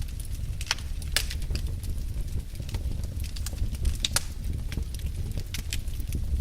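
Wood fire burning in a fireplace: irregular crackles and pops over a low steady rumble.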